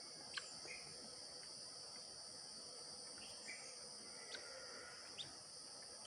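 A few short, isolated bird chirps over a faint, steady high-pitched drone.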